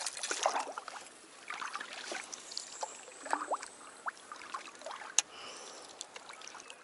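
Kayak paddle working the water: small splashes and drips, with scattered light knocks on the plastic hull and one sharp click a little after five seconds.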